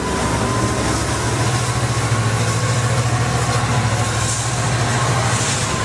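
EMD F59PHI diesel locomotive's two-stroke V12 engine working hard as it shoves a Pacific Surfliner push-pull train out of the station: a loud, steady low drone over the noise of the moving train.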